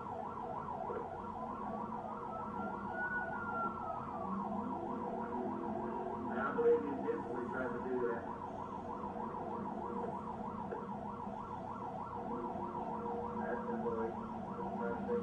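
Police car siren on a fast yelp, its pitch sweeping up and down several times a second without a break. A slower single rising-and-falling tone rides over it about one to four seconds in, and there is a brief louder burst about six and a half seconds in.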